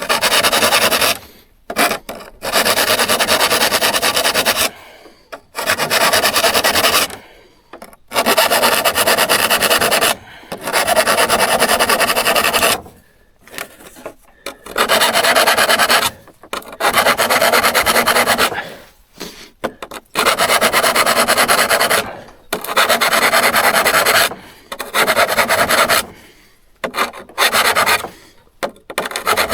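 Repeated long rasping strokes of hand abrasion, each about one to two seconds, with short pauses between strokes.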